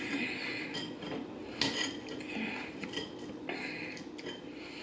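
Fork scraping and clinking against a plate while gathering up salad: sharp clinks about a second apart, with scraping in between.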